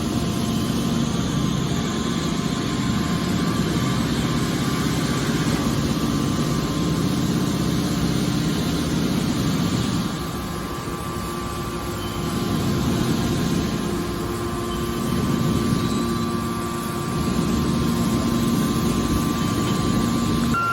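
Baling press for aluminium cans running: a steady machine hum with constant tones, easing off a little about halfway through and then picking up again.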